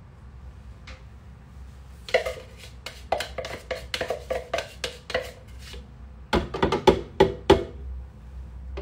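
Kitchen handling noises from a plastic tub of date powder and a wooden spoon: a run of quick light clicks and taps, then about five sharper knocks a little over halfway through.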